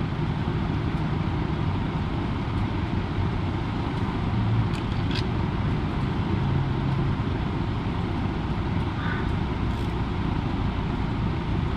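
Steady, even low rumbling noise with no clear pitch, and a few faint clicks around the middle and near the end as bolts are threaded by hand into the rear main seal housing.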